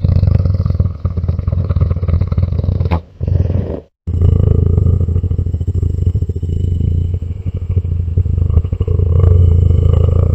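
A creature's purring sound effect: a loud, low, continuous rumble that breaks off briefly about three and four seconds in, then carries on.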